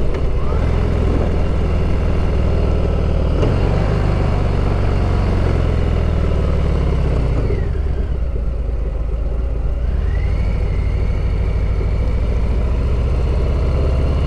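Harley-Davidson V-twin motorcycle engine running while riding. The revs ease off about seven and a half seconds in and climb again about two seconds later.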